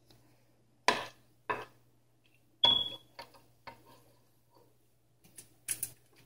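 Kitchen utensils knocking and clinking against cookware while whole spices are handled for frying: a few separate sharp knocks, one about two and a half seconds in with a brief ringing note, then lighter clicks.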